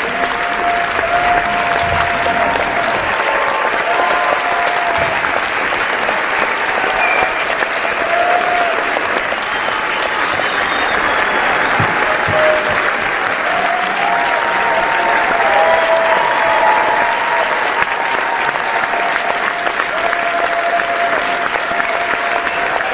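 Large crowd applauding steadily with dense clapping, with held cheers sounding over it now and then.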